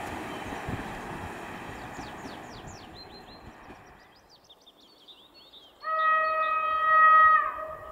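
Rolling noise of a passenger train fading as it moves away, with a bird chirping over it. Then a train horn sounds one long steady note for almost two seconds, dropping in pitch as it cuts off.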